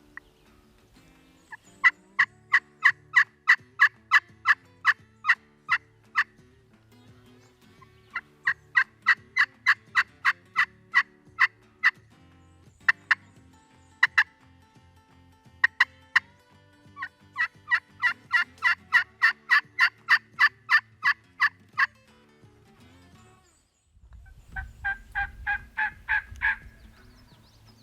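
Turkey yelping from a hunter's turkey call: long runs of sharp, evenly paced yelps at about four to five a second, broken by short pauses, then after a gap a shorter run that rises in pitch. Faint background music underneath.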